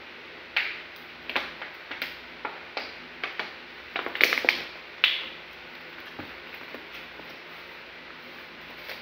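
Thin plastic water bottle crinkling and crackling in the hand while someone drinks from it: a quick run of sharp crackles that stops about five seconds in, loudest just after four seconds. Only a few faint clicks follow.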